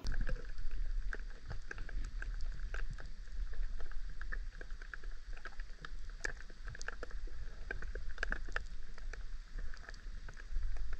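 Underwater sound heard through a submerged camera's housing: a steady low rumble of moving river water, with many scattered sharp clicks and crackles.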